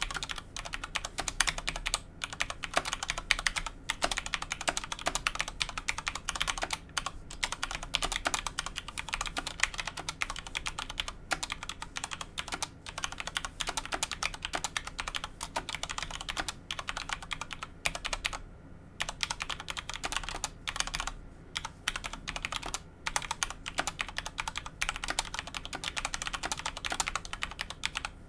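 Fast continuous typing on a Corsair K70 Rapidfire mechanical keyboard with linear Cherry MX Speed switches: a rapid clatter of keystrokes broken by a few short pauses.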